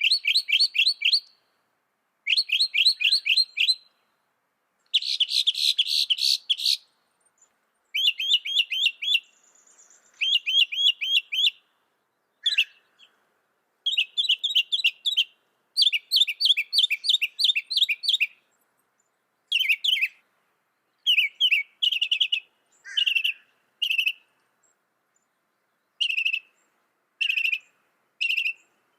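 Mockingbird singing. Each phrase is one high chirp repeated rapidly several times, lasting a second or two, then a pause and a new phrase on a different note. The phrases grow shorter in the second half.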